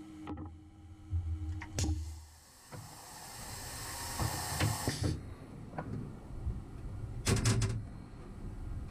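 Tool change on a Tormach PCNC 440 mill: the pneumatic power drawbar releases a hiss of air for about two seconds, starting about three seconds in, as a tool holder with a 1/8-inch end mill is fitted into the spindle. Metal clicks and knocks of the holder come around it, and a quick cluster of sharp clicks follows near the end.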